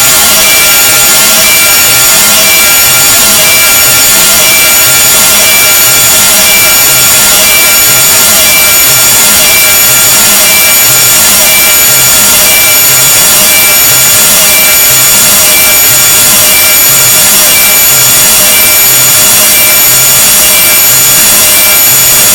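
Harsh, very loud noise sound effect: a dense hiss across all pitches, with several steady high tones and a low pulse repeating at an even rhythm.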